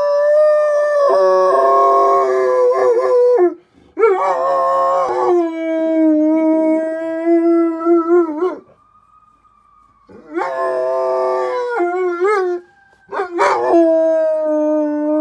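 A dog howling in response to sirens: four long, drawn-out howls with short pauses between them, most ending in a wavering, yodelling break in pitch.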